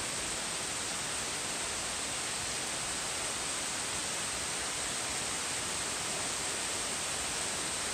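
Heavy rain pouring onto tree leaves and a grass lawn, a steady, even hiss with no breaks.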